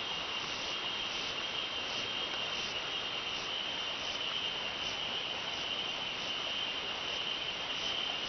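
Insects trilling in one steady high note, with a fainter pulsing chirp about every three-quarters of a second, over the even rush of a river.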